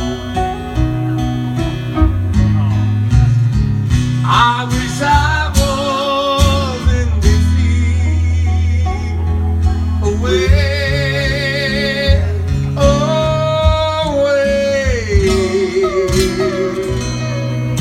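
Two acoustic guitars strumming a slow ballad, with a male voice singing long held notes with vibrato, without clear words, from about four seconds in.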